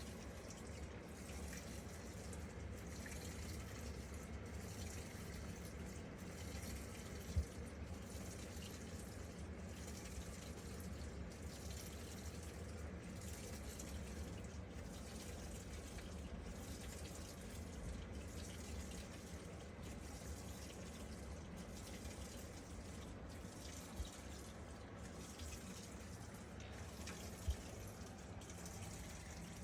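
Washing machine running with water in the drum: a steady, faint wash of water noise over a low hum, with three small clicks along the way.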